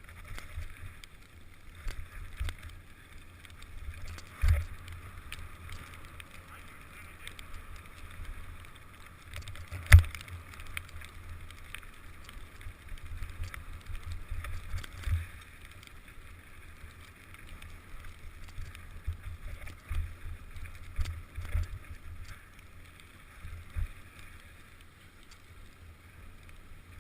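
Mountain bike riding down a dirt trail: a steady rumble and hiss of wind and tyres, broken by sharp thumps from bumps, the hardest about ten seconds in.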